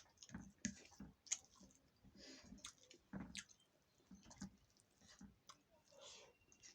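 Faint, irregular clicks and short soft scraping sounds, a few each second, from handling in a home kitchen during cooking.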